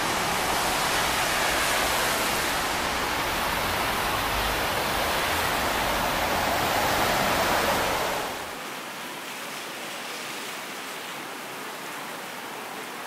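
Heavy typhoon rain pouring down in a steady hiss. It drops noticeably quieter and thinner about eight and a half seconds in.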